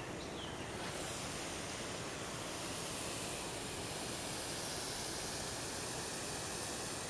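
Steady, even hiss of outdoor background noise with no distinct events, a little louder after about a second.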